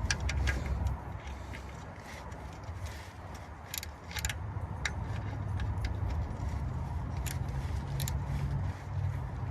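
Scattered light metallic clicks and clinks from hand tools at the oil drain plug under the truck, over a low steady rumble.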